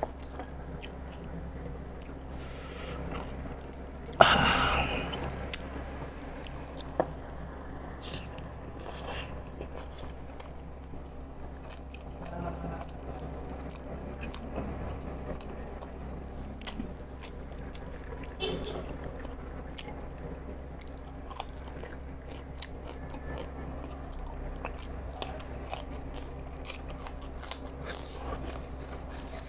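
Close-up mouth sounds of a man chewing and biting siomai dumplings, with small wet clicks throughout and one sudden loud crunch about four seconds in.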